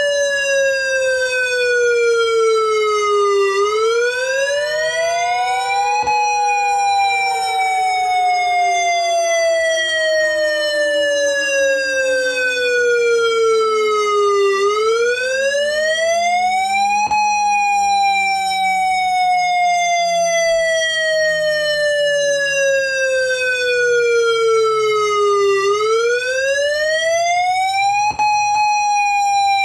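Simulated Ion Pathfinder electronic outdoor warning siren sounding the attack signal: a wail that rises for about two and a half seconds, then falls slowly for about eight, three times over. Underneath, a second siren's steady tone slides down in pitch and fades as it winds down.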